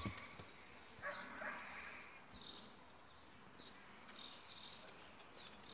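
Faint high chirps of small birds now and then, with a brief soft scuffling noise about a second in.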